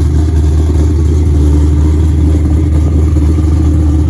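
LS3 V8 in a Nissan 350Z idling steadily with a loud, deep rumble.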